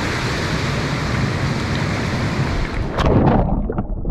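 Fast shallow river water rushing over rocks close to the microphone. About three seconds in, a splash as the camera goes under, and the sound turns muffled and bubbling underwater.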